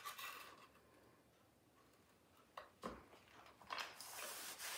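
Faint handling sounds as a Roman shade's loop tape is pressed onto the hook face of its headrail track: a few light taps and one soft knock about three seconds in, then a soft rustle near the end.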